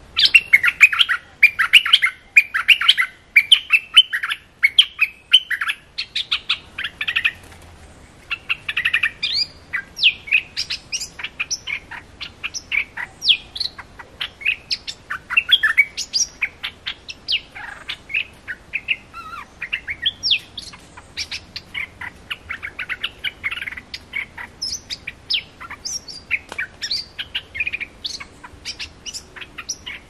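Bulbul of the kind called นกดอกแตง in Thai (merbah lekir in Malay) singing as a trapping lure call: repeated bursts of quick, chattering chirps, packed tightest in the first several seconds and then in separate phrases.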